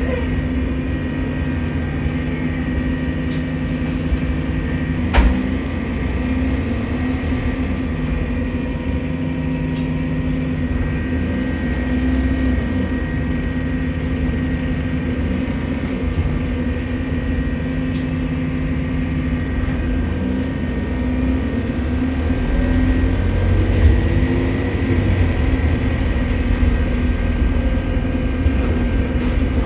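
Stagecoach London bus 36615 heard from inside while running: a steady engine and drivetrain drone with a steady high whine over it, the strange noise the uploader puts down to a leaking turbo. A sharp click about five seconds in and a bump toward the end.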